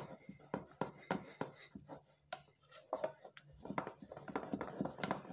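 Wooden spoon beating buttercream of butter and icing sugar in a plastic bowl by hand: a quick, uneven run of knocking and scraping strokes, a few each second.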